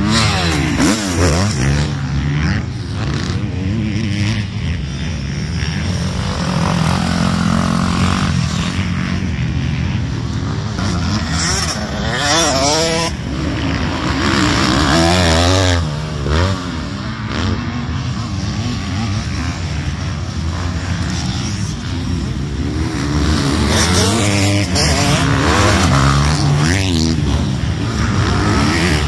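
Motocross dirt bike engines revving and running around a dirt track, rising and falling in pitch as bikes accelerate, shift and pass several times.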